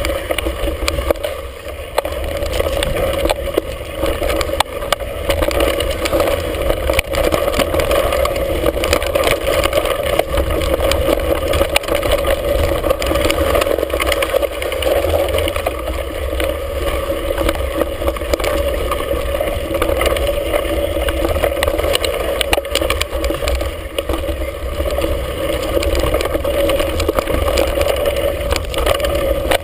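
Mountain bike descending a rough dirt singletrack, heard through a handlebar-mounted camera: steady wind rush and rumble, with frequent knocks and rattles from the bike over the bumps.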